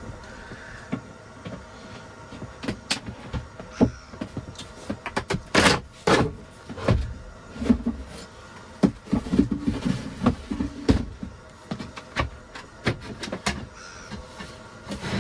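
Wooden floor boards and cabin panels being handled: an irregular run of knocks, clunks and scrapes as boards are lifted, shifted and set down.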